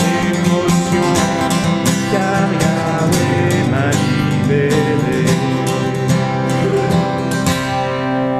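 Steel-string acoustic guitar strummed in a steady rhythm with singing voices, closing the song. A final chord near the end is left to ring out.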